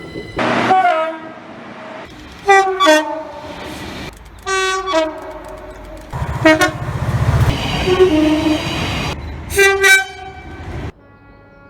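UK train two-tone horns sounding about six short blasts, each stepping from a higher note down to a lower one. A low train rumble runs under the blasts in the middle, and the sound cuts off abruptly near the end.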